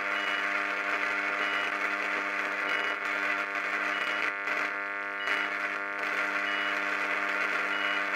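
Steady mains-frequency hum and buzz from two microwave oven transformers in series driving about 5,000 volts into a cooker switch and socket, which is arcing and starting to smoke inside. A short high beep repeats about once a second.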